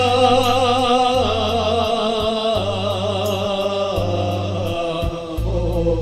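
A man singing in Serbian, holding one long wavering note, over electronic keyboard accompaniment with a low bass line and a steady ticking beat of about four ticks a second. A new short sung word comes in near the end.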